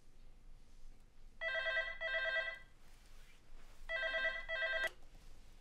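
Corded landline telephone ringing with an electronic trilling double ring, twice, about two and a half seconds apart. The second ring is cut short by a click near the end.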